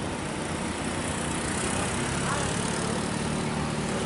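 Hino truck's diesel engine idling steadily, a low even rumble under road noise.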